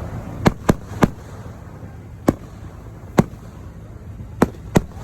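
Fireworks shells bursting in a display: seven sharp bangs at irregular intervals, two close pairs among them, over a steady low background noise.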